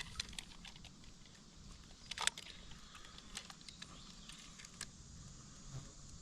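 Faint handling noises: scattered small clicks and taps, with one sharper click about two seconds in.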